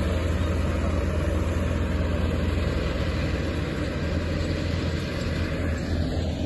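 Diesel engine of an asphalt paver running steadily at a low, even hum.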